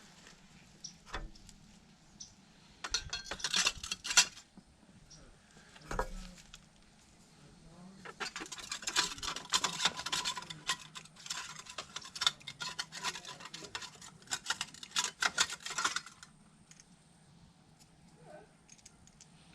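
Metal internals of a Lexx slip-on motorcycle exhaust (cone and baffle plates) clinking and scraping as they are handled. A few separate clinks come first, then about eight seconds of rapid clinking and rattling.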